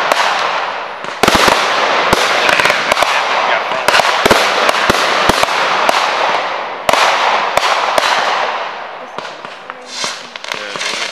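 Fireworks being set off from the ground: a fast, irregular run of sharp bangs from launches and bursts over a steady rush of noise. It thins out about nine seconds in, leaving a few scattered bangs.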